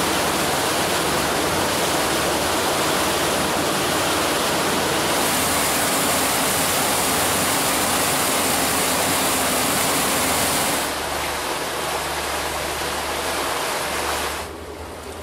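Steady rush of wind and water from a Sea Ray Sundancer cruiser running at speed, with a low engine drone underneath. It gets quieter about eleven seconds in and drops again near the end.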